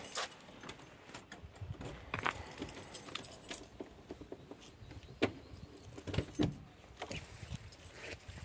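Keys jangling, with scattered sharp clicks and knocks; the loudest knocks come a little after the middle.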